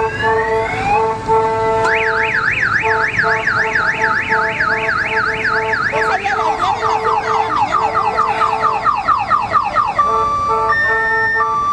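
Electronic vehicle siren cycling through its tones: a fast up-and-down yelp starting about two seconds in, switching to quicker falling sweeps around the middle, then a stepped melody of tones near the end. Underneath, a steady horn-like tone sounds on and off.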